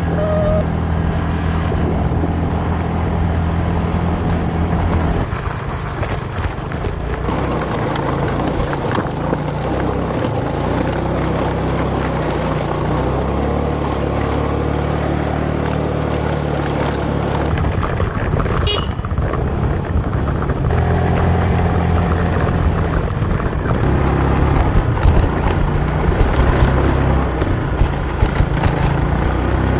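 Motor scooter engine running while riding uphill, its pitch stepping up and down as the throttle changes, under a steady rushing noise. There is a brief high chirp about two-thirds of the way through.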